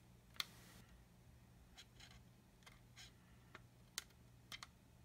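Near silence with a steady low hum and a few faint, scattered clicks as metal tweezers pick at masking tape on a plastic model tank, the sharpest about half a second in and at four seconds.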